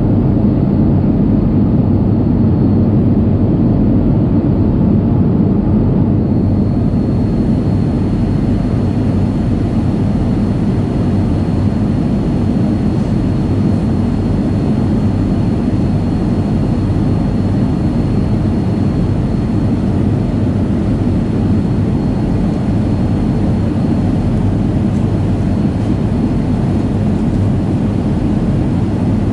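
Steady roar of a Boeing 757's jet engines and airflow heard inside the passenger cabin on descent, deep and even, with a faint high whine that drops out near the end.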